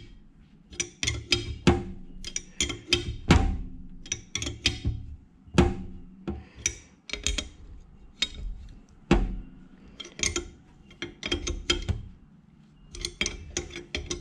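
Ring spanner turning the nut on a bolt in short strokes, a run of quick metallic clicks with each stroke and a few louder single knocks, as the bolt draws a brass bush into the cast-iron lathe apron.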